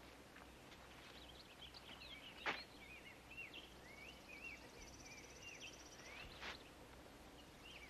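Faint birds chirping over quiet background hiss, with two soft knocks, one about a third of the way in and one near the end.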